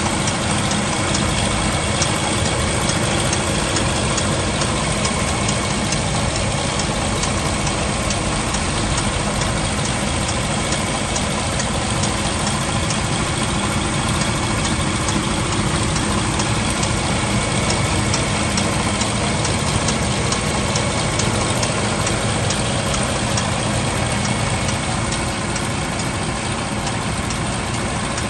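Diesel engine of a VDL Futura FHD2-129/370 coach idling steadily, heard from the open rear engine bay, with a regular light ticking over the engine note.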